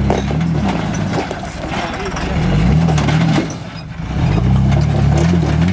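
Jeep Wrangler engine revving up and easing off in repeated surges under load as it climbs a rock ledge, with a brief lull about three and a half seconds in. Sharp knocks from the tyres and chassis on the rock come through along with it.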